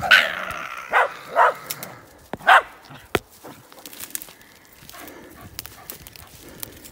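Wire-haired fox terrier barking at bay: four sharp barks in the first three seconds, the steady bay bark that tells the hunter the dog is holding its quarry stopped. After that, quieter crackling and rustling of spruce branches and twigs.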